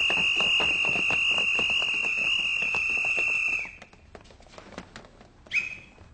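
Electric bell ringing with one steady high tone, which cuts off suddenly a little under four seconds in, over a clatter of footsteps and knocks from boys rushing out. Scattered footsteps and knocks continue, with a short high squeak-like tone near the end.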